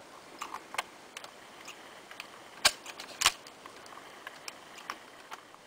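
Scattered sharp clicks and knocks over a faint steady hiss, the two loudest a little past halfway, about half a second apart.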